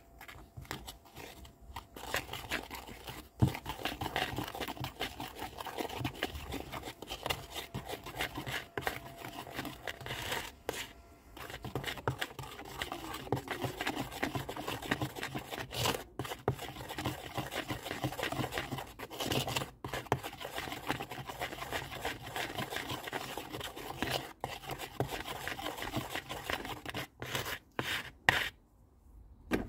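Metal spatula stirring and scraping a cement-and-water mix around a plastic bowl: continuous scraping with a few short pauses and several sharp taps near the end.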